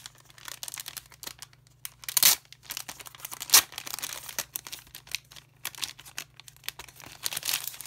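Clear plastic packaging sleeve crinkling and crackling in the hands as a wooden spoon-and-chopsticks set is slid out of it, in irregular bursts, with two louder crackles about two and three and a half seconds in.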